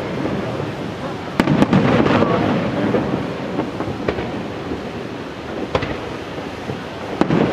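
Aerial fireworks shells bursting in a professional display: sharp reports about a second and a half in, then around four, six and seven seconds, with a low rolling rumble between them.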